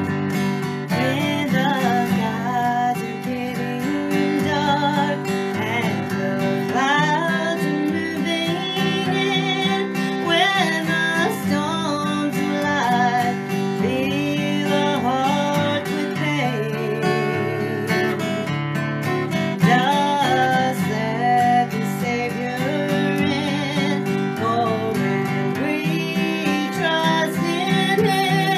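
Steel-string acoustic guitar strummed in steady chords while a woman sings a slow country gospel song, her voice wavering on held notes.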